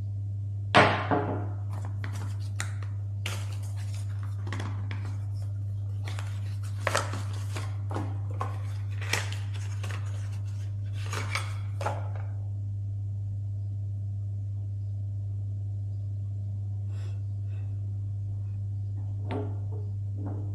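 Skincare product boxes and bottles being handled and opened: a sharp knock about a second in, then a run of clicks, taps and rustles for about ten seconds, after which only a few faint clicks remain over a steady low hum.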